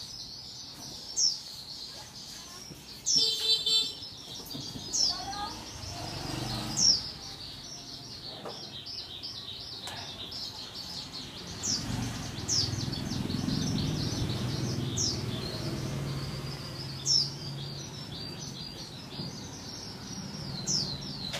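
Small birds chirping, with short high calls repeating every second or so.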